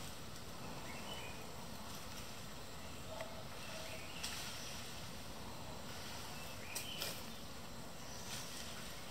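Outdoor tree-canopy ambience: a steady hiss with a few short bird chirps, and brief sharp crackles about four seconds and seven seconds in.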